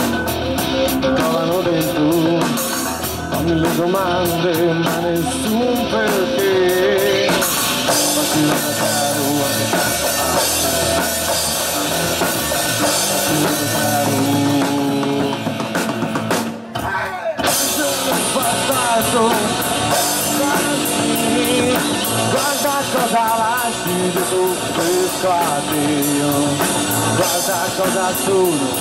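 Live rock band playing a song with a singer, drum kit and guitar. The sound dips briefly a little past halfway.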